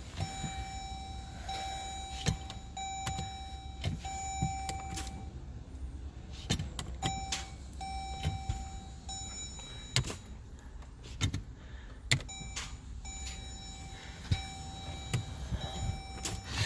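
2014 Jeep Grand Cherokee failing to start: repeated single sharp clicks with no cranking, over a steady electronic warning tone that switches on and off. The click-no-crank is the fault the owner puts down to a moisture-affected starter plug connector or a dying starter solenoid.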